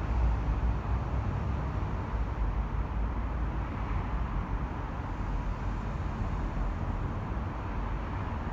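Steady noise of dense car traffic on a multi-lane expressway: tyres and engines of many passing cars blend into a continuous hiss over a low rumble. A faint thin high tone sounds briefly about a second in.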